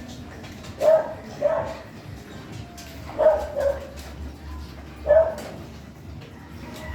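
A dog barking: about five short barks in loose groups of two, two and one.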